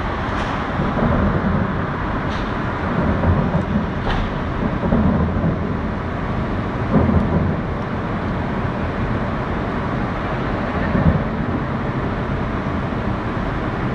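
Distant fireworks going off as low, muffled booms every couple of seconds, over a steady hum of city traffic.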